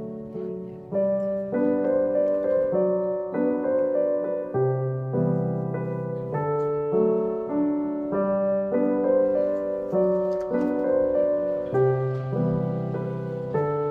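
Background piano music, a new note or chord about every half second.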